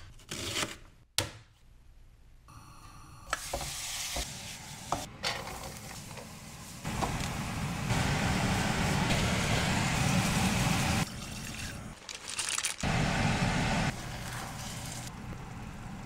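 Food sizzling in a hot frying pan while being stirred, in several short spliced clips: the sizzle jumps in level at each cut and is loudest in the middle.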